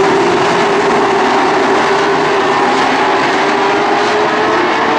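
A pack of late model stock cars' V8 engines running at racing speed. Many engine notes overlap in one steady, loud drone, their pitches slowly rising and falling as the cars move around the track.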